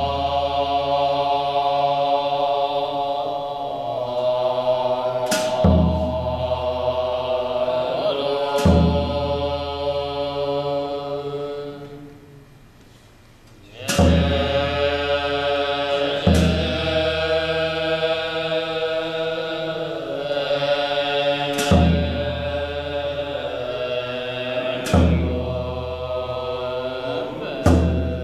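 Tibetan long horns (dungchen) sounding a sustained low drone rich in overtones, with strikes of a drum and cymbals about every three seconds. The horns fall away briefly around twelve seconds in and come back together with a strike.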